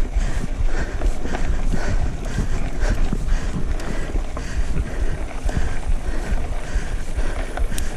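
Wind rumbling on an action camera's microphone as a mountain bike rolls along a dirt trail, with faint rhythmic panting about twice a second.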